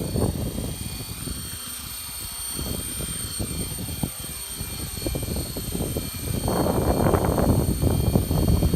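Radio-controlled helicopter flying, a steady high-pitched whine from its motor and rotor, with wind buffeting the microphone as a low rumble that grows louder about six and a half seconds in.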